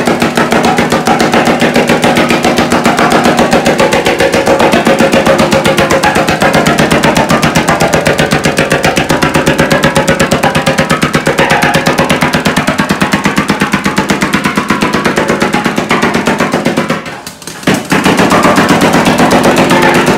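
Pneumatic air hammer pounding the head of a steel oil drum in rapid, continuous blows, the metal ringing under it: the sinking stage of making a double tenor steel pan. The hammering stops briefly about three seconds before the end, then starts again.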